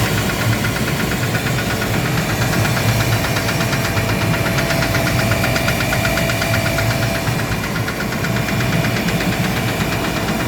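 Gardner Denver screw air compressor running with a rapid, even knocking over a steady hum and whine. The knock is the one the owner traces to a defective pressure valve.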